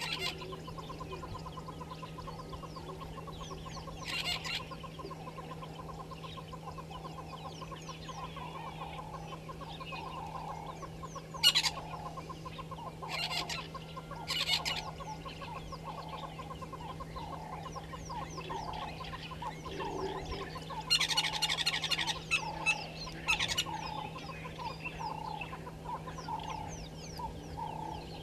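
Gamebirds clucking in a steady repeated run of calls, about one and a half a second, broken by several loud harsh bursts of calling. Other small birds chirp faintly, over a steady low hum.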